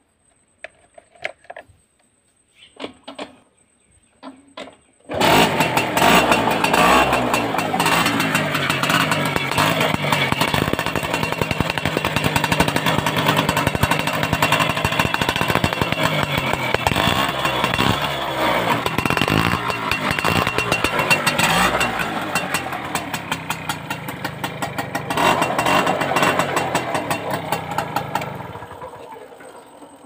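TVS XL Super moped's single-cylinder engine catching about five seconds in after a few light clicks, then running loudly with a rapid exhaust beat. It picks up briefly near the end and dies away as it is switched off. The loud exhaust noise is the silencer sound fault that the owner puts down to a leaking exhaust gasket.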